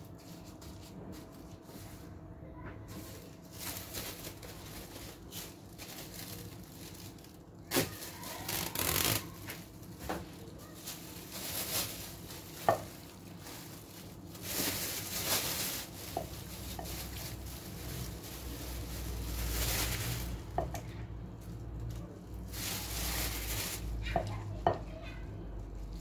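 Thin plastic freezer bags rustling and crinkling in several bursts as they are handled and filled with chopped tomatoes, with a few light clicks of a plastic ladle against the bowl.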